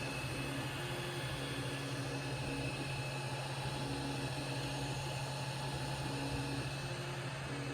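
Ender 3 3D printer running: a steady low hum with short pitched stepper-motor tones that start, stop and change pitch as the axes move. There are no clicks from the direct-drive extruder here.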